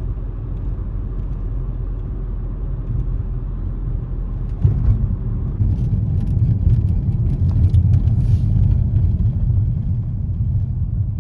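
Low, steady rumble of a Nissan Rogue Sport's engine and road noise heard inside the cabin while driving. It grows louder about halfway through, with light ticking over it.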